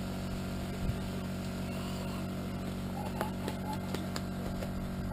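Apple press machinery running steadily with a low, even hum, with a few faint knocks around it.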